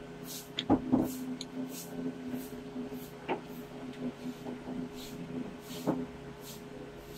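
Handling noise as liquid detergent is added to glue for slime: a few sharp knocks and clicks of the bottle and container, about a second in, at about three seconds and near six seconds. Under them are a steady low hum and faint, regular swishes.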